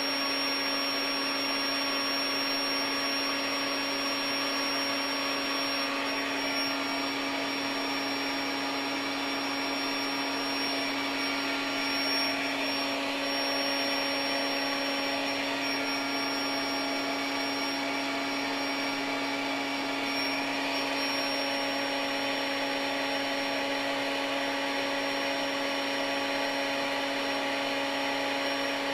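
Built-in electric pump of a SoundAsleep Dream Series queen air mattress running in deflate mode, sucking the air out of the mattress. It makes a steady, unchanging whir like a small vacuum cleaner.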